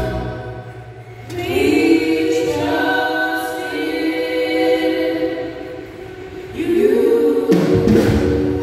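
A small vocal group singing a slow gospel song in harmony, unaccompanied. There are two long sung phrases, the first coming in about a second in and the second near seven seconds.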